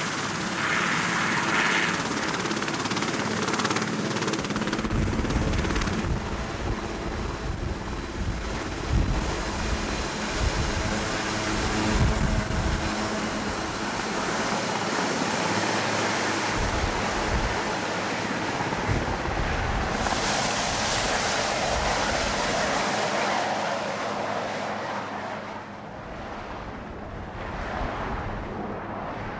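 Sikorsky VH-3D Sea King helicopter (Marine One) lifting off and climbing away: a high turbine whine over heavy rotor thumping and rumble. The sound fades noticeably near the end as it gains height.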